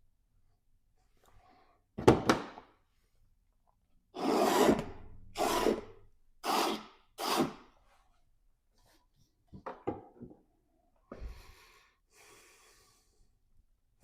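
A large bristle brush scrubbed across a canvas in short, scratchy strokes. There is one stroke, then four in quick succession, then a few softer ones near the end.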